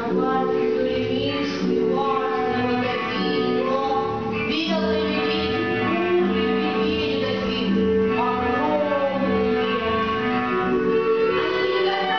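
Music with a female voice singing over sustained bowed strings.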